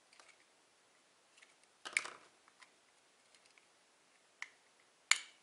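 Plastic clicks and cracks as the snap-fit plastic case of an LED ceiling panel's driver is prised open with a small flat screwdriver and by hand: a cluster of cracks about two seconds in and one sharp, loud snap near the end as the latches give way.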